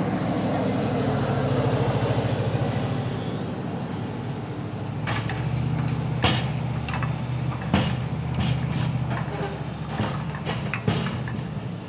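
Diesel engine of a truck-mounted hydraulic grapple loader running steadily, working harder for the first few seconds before easing off. From about five seconds in come a string of sharp metallic clanks and knocks as the steel grapple works in the gondola.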